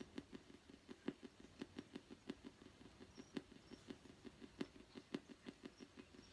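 Spirit box sweeping through radio stations, a faint, even run of short choppy clicks of static, about five or six a second.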